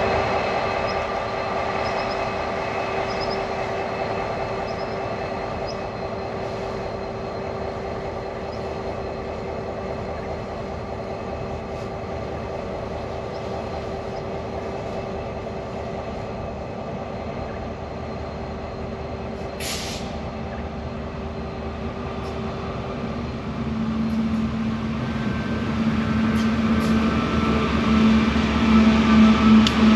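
Diesel locomotives hauling an ore train, running steadily with a constant engine hum and wagon noise. A brief hiss comes about two-thirds of the way through, and the low engine note grows louder near the end.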